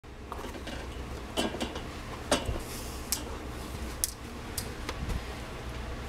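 About ten light clicks and knocks, unevenly spaced, over a steady low hum.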